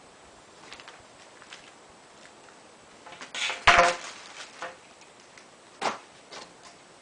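Solar panel kit parts being handled during assembly: a few light clicks, then a louder clatter of knocks about three and a half seconds in and a single sharp knock near six seconds.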